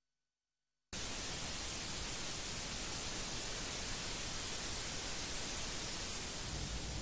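A brief silence, then about a second in a steady, even hiss of static starts abruptly and holds unchanged.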